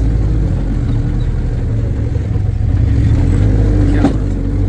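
Off-road 4x4 jeep's engine running steadily, with a single sharp knock about four seconds in.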